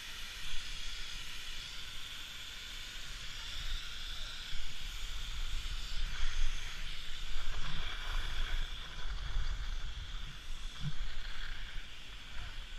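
Skis sliding and scraping over packed snow, with wind on the microphone during a downhill run: a steady hiss over an uneven low rumble that swells and drops.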